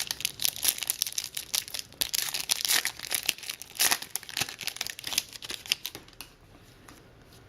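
A trading-card pack's wrapper being torn open and crinkled by hand, a dense crackling for about six seconds that dies away near the end.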